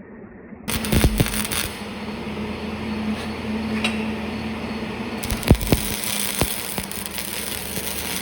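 Sharp metal knocks, a handful of separate blows spread over several seconds, over a steady hum: work on freeing a steel rod from its tube on a batwing mower.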